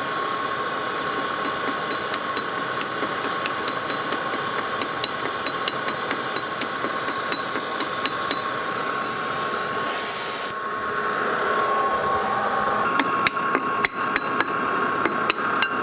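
Oxy-acetylene torch burning with a steady hiss, heating a lathe glue chuck to break the super-glue bond. The hiss cuts off abruptly about two-thirds of the way through, and a series of sharp metallic knocks and clinks follows.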